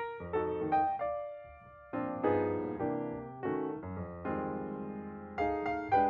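Background piano music: melody notes over chords, each struck and dying away, with a sparser, quieter passage about a second in.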